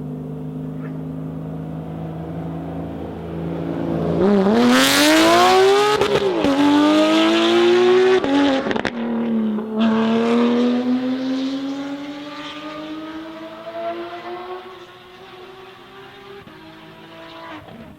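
Porsche 992 GT3 RS's 4.0-litre flat-six with a Soul exhaust holding a steady note, then about four seconds in accelerating hard. Its revs climb, dropping twice at upshifts. It is loudest in the middle and fades as the car pulls away, still gaining revs.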